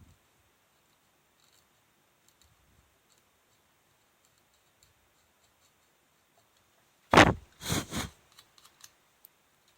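A sharp tool scraping and clicking against a printed circuit board, peeling solder mask off a copper track. It is quiet at first with faint ticks, then about seven seconds in comes a short cluster of three loud scrapes and knocks, followed by a few light clicks.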